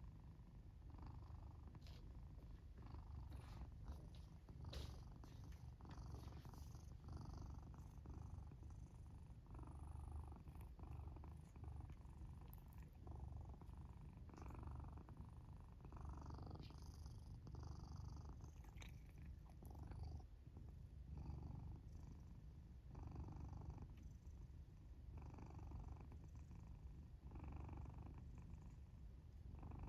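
Sleeping domestic cat purring faintly and steadily, with a soft breathy snore on each breath about every second and a half.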